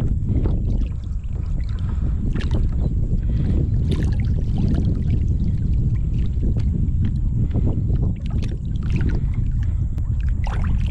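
Water lapping and splashing against a kayak's side, with small splashes from a large redfish held by the tail at the surface, over a steady low rumble.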